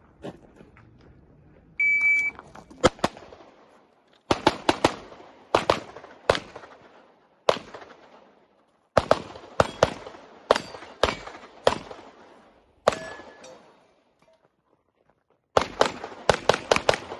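An electronic shot timer gives one steady high start beep about two seconds in. A competitor then fires a handgun in quick strings of sharp shots, a pair first and then clusters of several rapid shots separated by short pauses as he moves between shooting positions.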